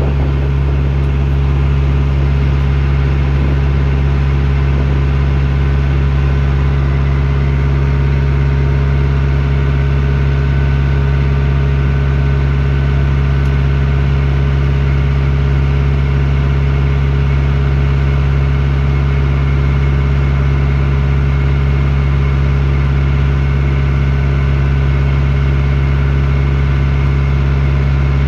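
Backhoe loader's diesel engine running at a steady speed: a constant low drone with no change in pitch.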